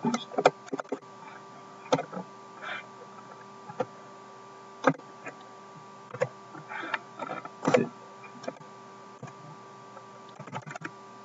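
Occasional keystrokes and clicks on a computer keyboard and mouse, scattered and irregular, over a steady faint hum.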